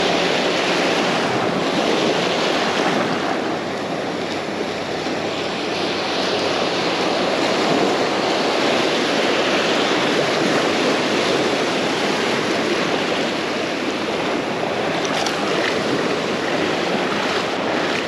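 Ocean surf washing onto a beach: a steady rushing that swells and eases slowly, with wind buffeting the microphone.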